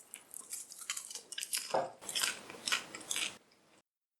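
A person chewing popcorn with irregular crisp crunches that stop about three and a half seconds in.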